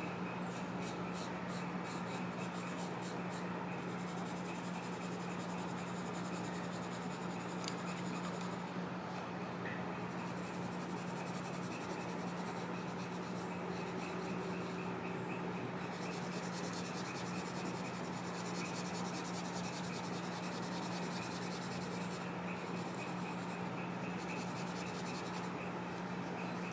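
Charcoal pencil scratching across drawing paper in quick, repeated shading strokes, with a couple of short pauses, over a steady low hum.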